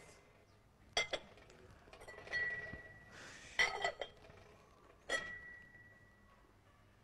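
Dishes clinking: a few sharp clinks in three small groups, about a second in, at three and a half seconds and at five seconds, some leaving a high ringing note that hangs for a second or so.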